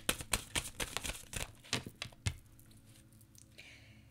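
A deck of oracle cards being shuffled by hand: a quick run of soft card clicks and slaps that stops a little over two seconds in.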